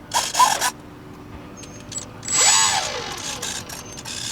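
Small electric motor and propeller of an E-flite P-47 UMX RC plane briefly spun up and back down: a whirring whine that rises and falls in pitch over about half a second, a little past the middle. A short burst of noise comes near the start.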